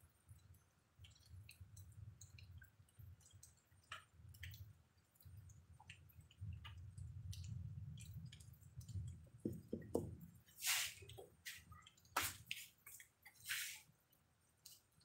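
Faint rain falling on a wet street and doorstep: scattered drips and splashes, with a few louder splashes in the later seconds. A low rumble comes and goes underneath.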